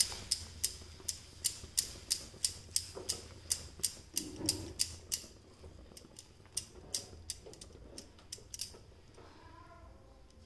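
A silicone spatula stirring a runny mix of makhana powder and jaggery water in a nonstick kadhai, its strokes knocking the pan in quick short clicks about three times a second. Halfway through the clicks thin out, and they die away near the end.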